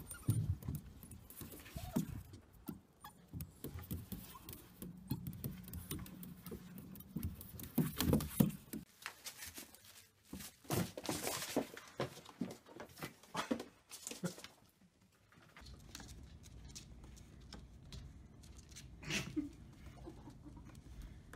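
Small pets moving about: light pattering, scraping and scattered knocks and clicks from paws and claws on hard surfaces, with no steady sound.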